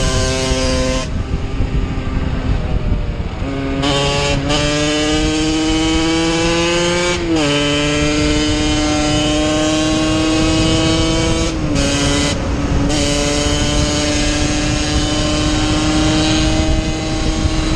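Yamaha DT 50's single-cylinder two-stroke engine pulling along the road, its note climbing steadily and then dropping at each gear change, near four, seven and twelve seconds. About a second in the throttle is eased off for a couple of seconds. Wind rushes on the microphone throughout.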